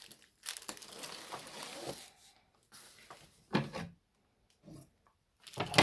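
Cardboard box and packaging being handled: rustling for the first couple of seconds, then two dull knocks about three and a half seconds in and near the end as items are set down.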